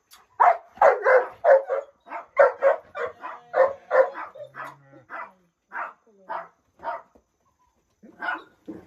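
A dog barking in a quick run of short barks, about three or four a second, slowing after about five seconds, then a pause of about a second before the barking picks up again near the end.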